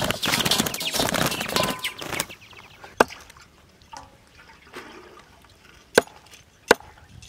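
Live quails held by the feet flapping their wings in a loud, rustling flurry for the first two seconds or so. Then a knife chopping quail on a wooden board: three sharp chops, one about three seconds in and two close together near the end.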